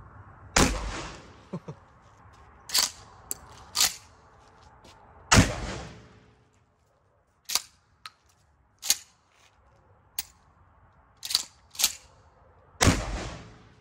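Three pump-action shotgun shots, about five and seven seconds apart, each a loud blast with a short echo tail. Between the shots come shorter sharp clacks, the pump being racked to chamber the next shell.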